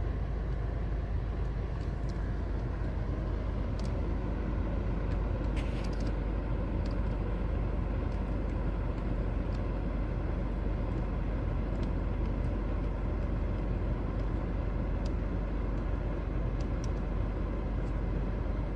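Subaru WRX's 2.0-litre turbocharged flat-four engine idling with a steady low rumble, with a few faint clicks.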